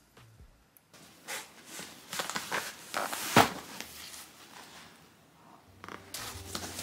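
Cardboard box being handled and shifted: a few short scraping rustles and knocks, the loudest about three and a half seconds in. Soft music comes in near the end.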